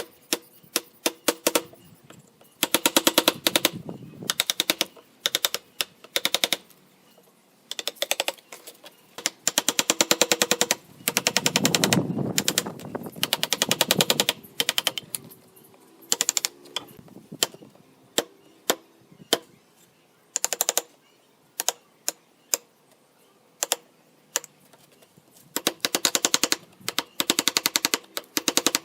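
A workshop tool clicking fast and sharply in short bursts of a second or two, with single clicks in between, as it works in spurts.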